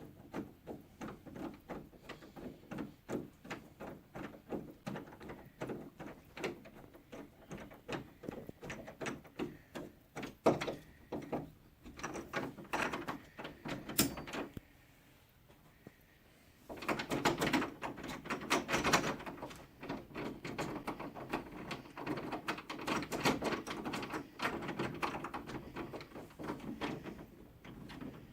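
Door knob mounting screws being turned in by hand with a screwdriver: a long run of quick clicks and scraping strokes, a short pause about halfway, then denser scraping and clicking.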